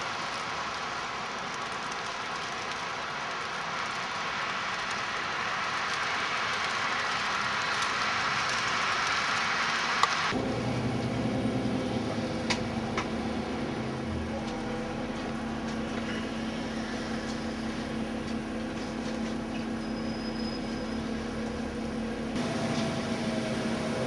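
Steady hiss of heavy snow falling. About ten seconds in it switches abruptly to a steady low mechanical hum with a couple of faint clicks.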